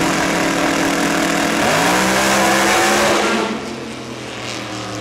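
Drag car with a 1957 Chevrolet body launching from the start line at full throttle, its engine pitch jumping up, then dropping and climbing again about one and a half seconds in as it shifts gear. About three seconds in the engine sound falls away as the car pulls off down the strip.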